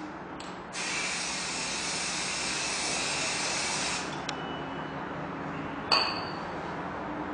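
Gloss black paint being sprayed: a short hiss, then a steady spray of about three seconds that cuts off abruptly. A single sharp clink follows near the end.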